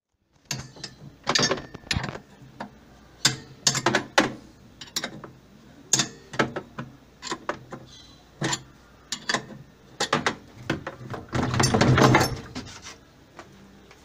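A metal wrench clicking and knocking against the hub nut of a top-load washing machine's wash basket as the nut is worked loose to free the stuck basket. The sharp, irregular metallic clicks build to a longer, louder rattle near the end.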